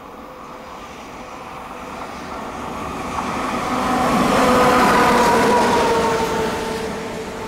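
A train passing by: its sound builds to a peak about five seconds in and then fades, with a whine that drops slightly in pitch as it goes past.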